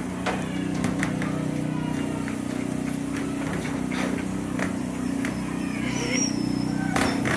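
A steady low mechanical hum runs throughout, with scattered sharp clicks and a few brief high squeaks near the end.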